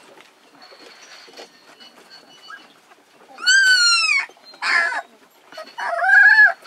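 Three-week-old sled dog puppies whining and yelping as they play: a long high-pitched whine that drops at the end about three and a half seconds in, a short yelp a second later, and another whine near the end, over soft scratching of paws on the wooden floor.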